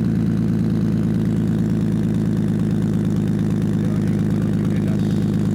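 Toyota Soarer (Z20) engine running steadily at a constant, even note.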